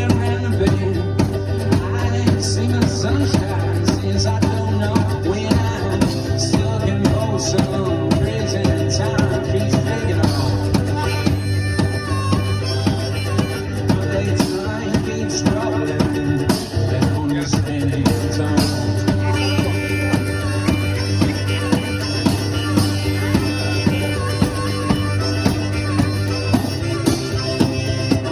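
One-man band playing old-school country music: a steady drum beat over a held low note, with a melody line on top.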